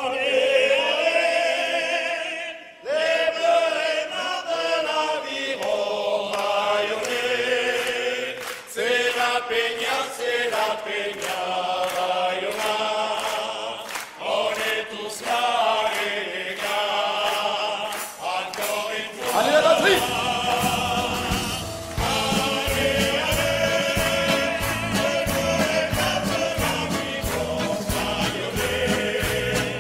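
A male choir sings a festive song together, with the audience clapping in time. For the first two-thirds the voices carry it almost alone. Then backing music with a steady low beat joins in under the singing.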